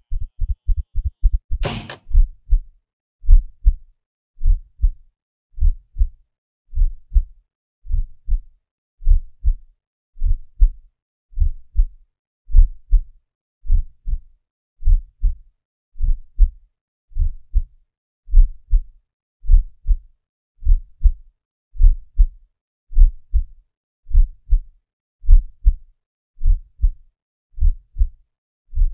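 A racing heartbeat with a thin high-pitched defibrillator charging whine over it; a bit under two seconds in a sharp electric zap of the shock cuts in. After it the heartbeat slows to a steady lub-dub about once every 1.2 seconds.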